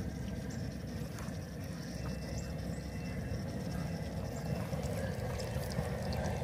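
Outdoor propane burner under a pot of frying oil: a steady low rumble with faint scattered crackling.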